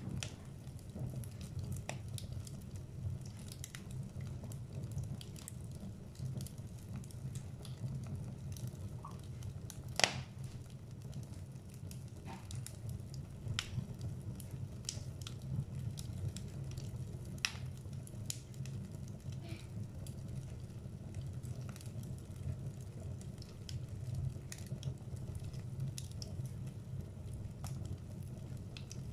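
Wood fire burning in a fireplace: a steady low rumble from the flames with scattered crackles and pops from the logs, and one loud sharp pop about ten seconds in.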